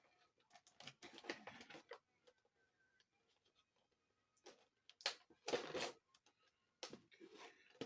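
Plastic action-figure packaging being handled, giving faint rustling and clicking in three short spells.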